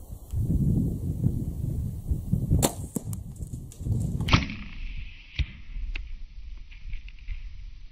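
A bow shot: sharp snaps of the bowstring and arrow, the loudest about four seconds in as the arrow strikes, with an earlier snap and a few fainter clicks. Low rumbling handling noise lies underneath.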